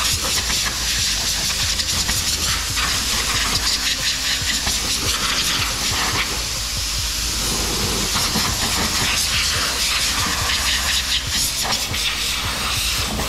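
Compressed air hissing from a hand-held blow gun on an air hose as it blows sanding dust off a filled body panel before painting; one long, unbroken hiss.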